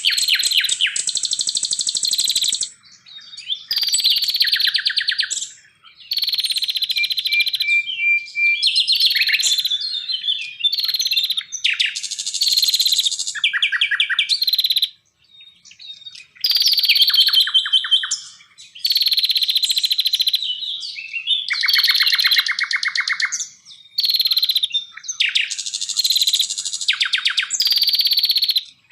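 A songbird singing loud, varied phrases of rapid trills, whistled notes and downslurred calls. Each phrase lasts one to three seconds, with short pauses between them.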